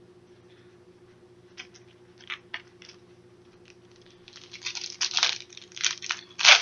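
Trading cards and their crinkly pack wrapper being handled. There are a few light ticks, then from about four seconds in a run of loud crinkling and rustling.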